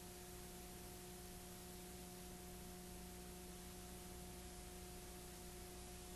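Faint steady hiss with a low electrical hum: the recording's noise floor, no other sound.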